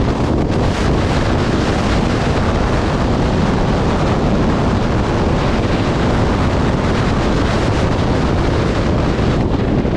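Steady, loud wind rush buffeting the microphone of a motorcycle riding at highway speed.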